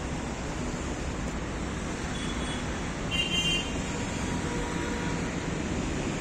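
Steady city street traffic noise, with a brief high-pitched sound about three seconds in.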